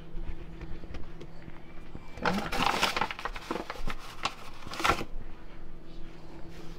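Hands working bread dough on a stone countertop with soft knocks, over a faint steady hum. A couple of seconds in, a burst of rustling and crinkling lasts about three seconds as she reaches for flour.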